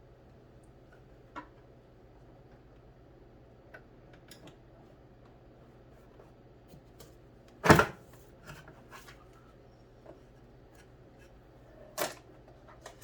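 Hands handling a plastic sewing machine and its packaging: scattered small clicks and taps, with a sharp knock about two-thirds of the way through and another near the end, over a low steady hum.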